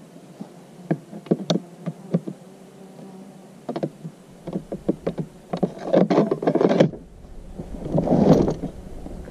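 Metal locking bar clicking and knocking against the hard plastic tool boxes and their metal latches as it is threaded through the latch holes, a string of light sharp taps. A buzzing insect is heard among them.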